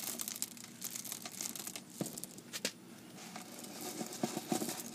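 Expanded clay pebbles (hydroton) clicking and rattling against each other and the plastic net pot as they are poured in and settled by hand: a scatter of small light clicks, with two sharper clicks a little after two seconds in.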